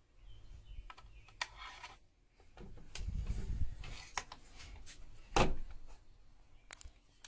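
Scattered clicks and knocks with rustling and low thumps, as of things being handled and moved; the loudest knock comes about five and a half seconds in.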